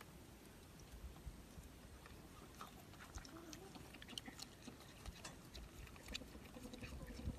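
Raccoon chewing grapes: faint, scattered small clicks and smacks that grow busier about a third of the way in.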